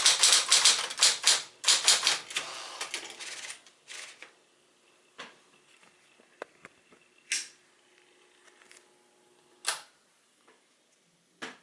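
1966 Sears Celebrity 12 manual typewriter, a Smith-Corona with 5TE mechanics, typing: a fast run of key strikes for about three and a half seconds, then a handful of single strokes a second or two apart.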